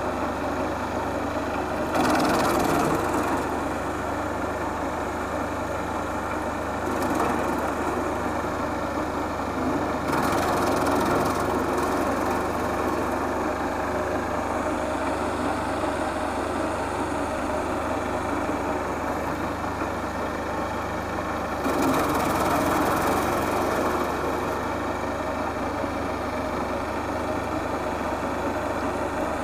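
Wood chipper running steadily, with louder, rougher surges about four times as branches are fed in and chipped.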